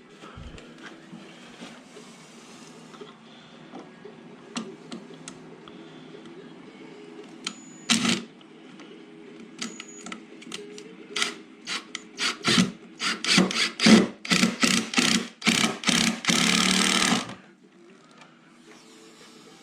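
A run of sharp knocks on timber that come quicker and louder, then a harsh noise lasting about a second near the end.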